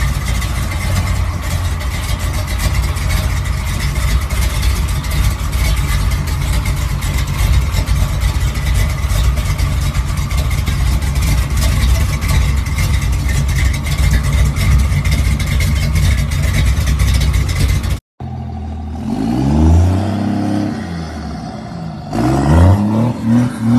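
Square-body Chevrolet Scottsdale pickup's engine idling steadily and loudly. About eighteen seconds in, it cuts to a mud-covered second-generation Dodge Ram 4x4 revving in deep mud: the engine pitch rises and falls, then a quick series of short revs comes near the end.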